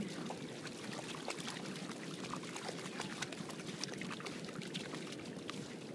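A dog wading through shallow water over stones: a steady wash of water with many small sharp splashes from its paws.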